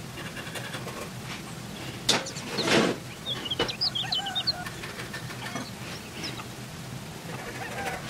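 Workbench sounds of measuring and marking copper tube: a sharp tap about two seconds in, then a short scratchy stroke of a marker against the ruler and tube. Birds chirp briefly in the background around the middle.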